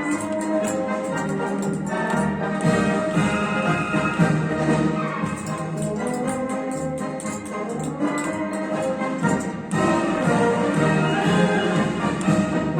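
Orchestral music with brass prominent.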